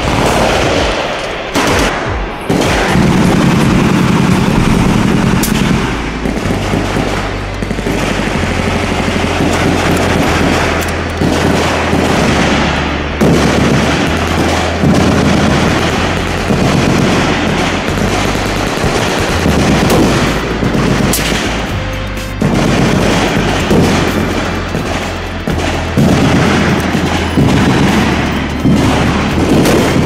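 Machine-gun fire in long rapid bursts, laid over background music with a deep bass line.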